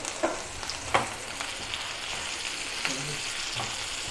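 Sliced onions sizzling and crackling as they fry in oil in a nonstick pan, being stirred with a spatula, at the stage of frying until just translucent. A couple of sharp clicks come in the first second.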